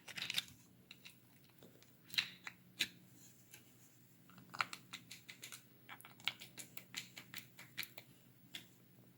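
Faint, irregular small clicks and taps of a 3D-printed plastic trigger frame being handled and worked over to clear it, coming several a second in the second half.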